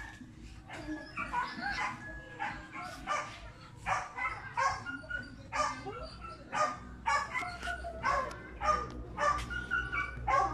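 A dog barking repeatedly, short calls about twice a second.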